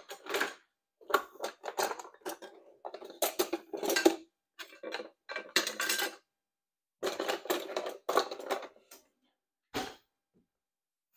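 Kitchen dishes and utensils clattering and clinking in several short bursts with pauses between them, then a single knock near the end.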